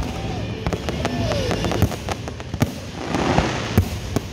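Aerial fireworks display: shells bursting in a rapid, irregular string of bangs, with two short whistles that fall in pitch in the first second and a half and a swell of hiss about three seconds in.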